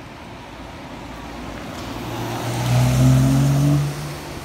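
A car driving past close by on a wet road: tyre hiss and engine hum swell to a peak about three seconds in, the hum rising slightly in pitch, then fall away quickly.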